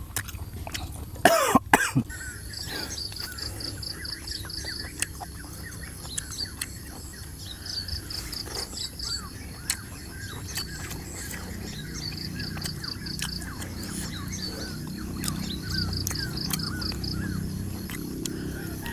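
Birds chirping in repeated short runs over a steady high insect drone, with scattered clicks. About a second in there is a loud, harsh burst that falls in pitch.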